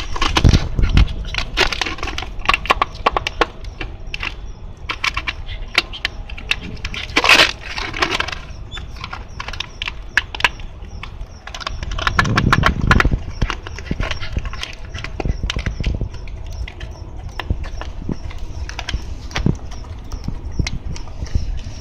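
Shiba Inu chewing and batting a plastic PET bottle: irregular crackling and crunching of the thin plastic, with louder flurries about a second in, around the middle and again a little later.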